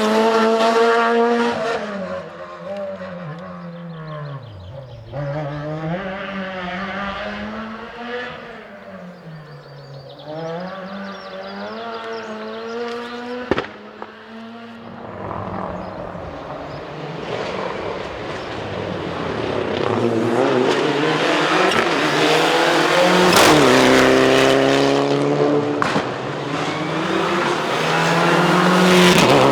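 Rally car engines at full attack on a closed stage. Revs rise and fall through gear changes and braking as one car works away into the distance. A second car comes in louder through the second half, with a single sharp crack about halfway through.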